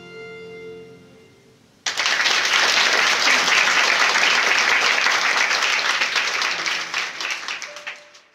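The last held chord of piano and violin dies away, then audience applause starts suddenly about two seconds in and fades out near the end.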